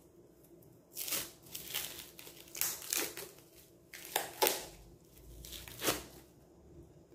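Clear plastic wrap crinkling in irregular bursts as it is pulled off flower-veiner moulds. It starts about a second in and stops about six seconds in.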